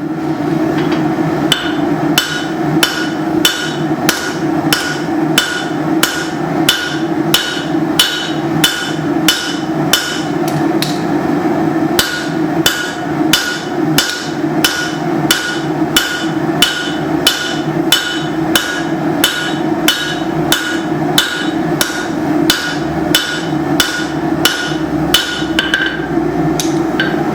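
Hand hammer striking hot leaf-spring steel on an anvil in a steady rhythm of about two to three blows a second, each blow ringing. The strikes are drawing the spring steel thinner for a cleaver blank. A steady hum runs underneath.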